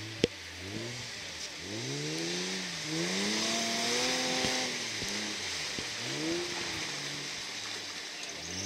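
Off-road 4x4 engine revving hard and dropping back several times under load, with a steady hiss underneath. A sharp knock comes about a quarter of a second in.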